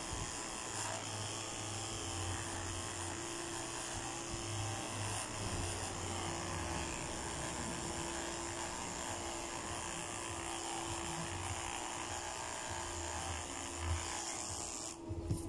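Corded electric dog clippers running with a steady, even-pitched buzz as they cut through a dog's coat.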